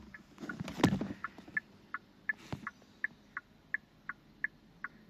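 Hyundai Azera's turn-signal tick-tock from the newly replaced chime speaker in the instrument cluster: short electronic clicks alternating between two pitches, about three a second, showing the speaker works again. A louder knock about a second in.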